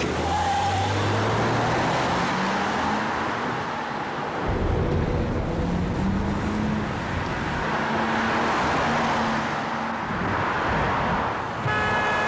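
Car engines accelerating over road noise, their pitch climbing in two rising sweeps during a car chase. A car horn starts sounding near the end.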